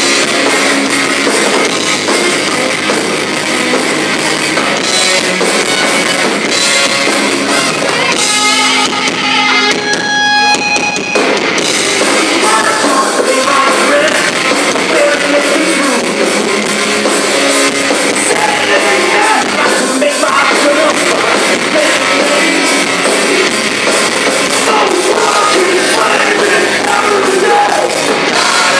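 Live heavy metal band playing loud distorted electric guitars, bass and drums, with a vocalist singing. About nine seconds in, the drums and cymbals stop for about three seconds while a held guitar note rings alone, then the full band comes back in.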